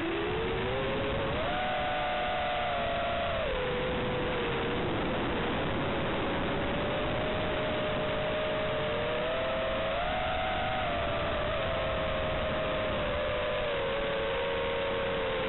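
FPV quadcopter's brushless motors whining over a steady hiss picked up onboard, the pitch rising and falling with the throttle.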